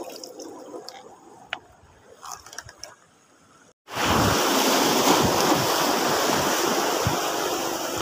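Faint water sounds with a few small clicks and splashes, then, after a cut about four seconds in, loud steady surf washing over shoreline rocks with wind buffeting the microphone.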